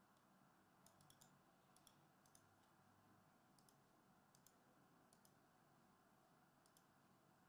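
Near silence: room tone with a scattering of very faint, brief clicks.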